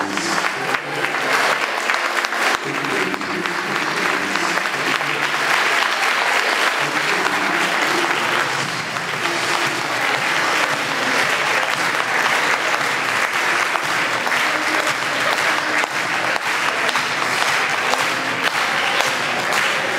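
A large crowd applauding steadily in a hall, with voices among the clapping.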